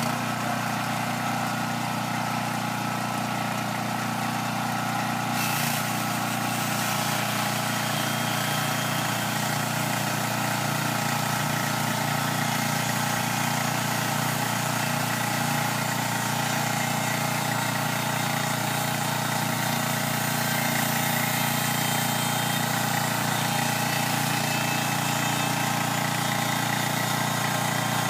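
Portable band sawmill's small gasoline engine running steadily while its band blade saws through a log, the saw head pushed along the track by hand. The sound grows a little brighter about five seconds in.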